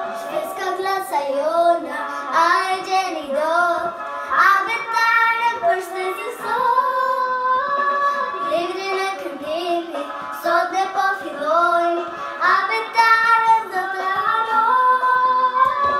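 A young girl singing a song over a recorded instrumental backing track.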